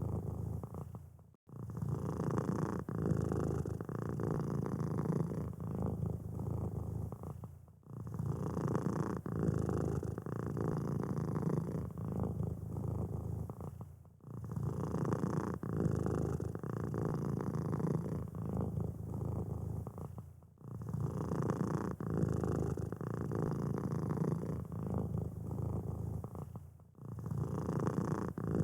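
Domestic cat purring steadily, with a short break about every six seconds.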